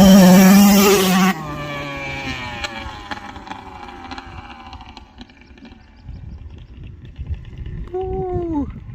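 Suzuki RM85 two-stroke dirt bike engine held at high revs with a buzzing note. About a second in it drops off sharply, and its pitch then falls slowly as it fades away. A short tone sweeps downward near the end.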